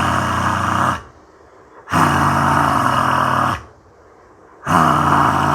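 A man performing Simhasana (lion's breath), tongue out, lets out long, forceful roaring exhalations with a low growl in the voice. There are three in all: the first ends about a second in, the second fills the middle, and the third starts near the end. Each lasts about a second and a half.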